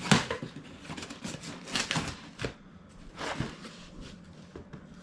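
Cardboard box and packaging being handled and opened: scattered rustles, scrapes and light knocks at irregular intervals.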